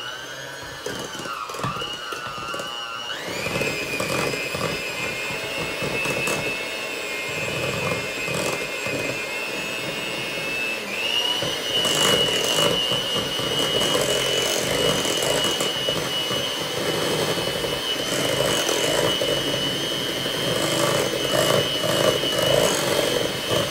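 Electric hand mixer running, its beaters churning through a thick mix of cream cheese and condensed milk. The motor whine wavers at first, then steps up in pitch about three seconds in and again about eleven seconds in.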